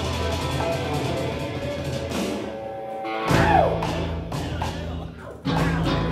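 Rock band playing live: electric guitars and bass over an electronic drum kit, closing out the song with big chord hits. The first hit comes about three seconds in with a falling slide, and the second comes near the end.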